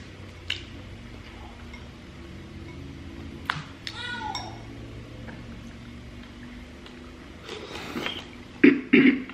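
Eating seafood: a few sharp clicks and clinks of crab shells and dishes over a low steady hum. Near the end come a few short, loud voice-like cries.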